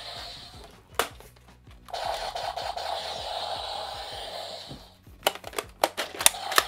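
Electronic sound effects from a Power Rangers Super Ninja Steel toy blaster's small speaker, one at the start and another from about two to nearly five seconds in, with a single click about a second in. Near the end comes a quick run of about eight sharp plastic clicks as the toy is handled.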